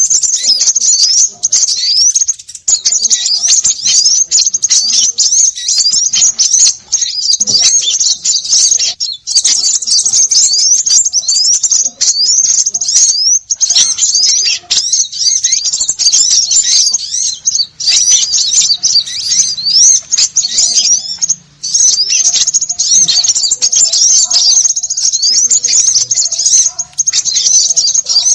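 A flock of small birds chattering noisily: many rapid, high-pitched chirps and short sweeping notes overlapping without pause, a bird-lure call meant to draw small birds in.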